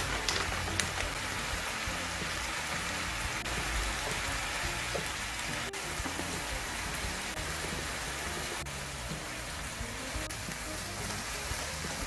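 Pork pieces sizzling steadily as they stir-fry in a frying pan, with a couple of taps of the wooden spoon against the pan in the first second. Background music plays underneath.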